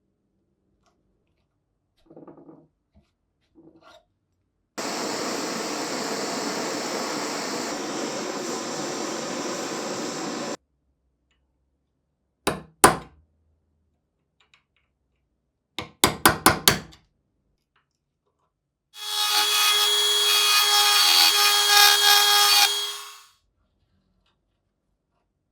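Workshop tool sounds on the rusty vise in short, hard-cut takes. First about six seconds of steady scraping. Then two sharp clicks, a quick run of five or six clicks, and about four seconds of a small power tool whirring with a steady high tone.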